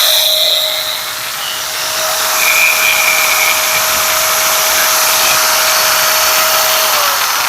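Angle grinder running at full speed with no load, a steady high-pitched whine over a loud hiss. Its gearbox has a freshly replaced bearing and gear packed with new grease. The pitch dips slightly near the end.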